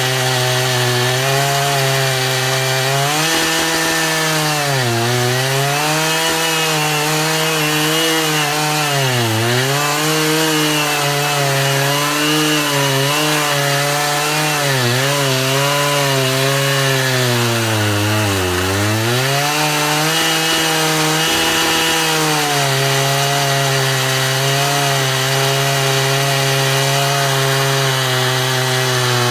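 Chainsaw running near full throttle while cutting wood. Its pitch drops three times as the engine bogs under the load of the cut, then climbs back each time.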